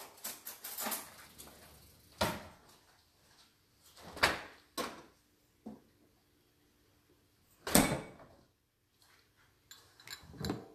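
Kitchen clatter from someone rummaging at the counters and cabinets: a series of sharp knocks and clunks a second or more apart, with smaller clicks between them. The loudest knock comes about eight seconds in.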